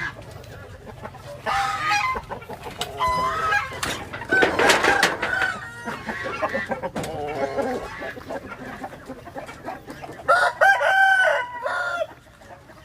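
Gamefowl roosters crowing: several crows one after another, the loudest about ten seconds in.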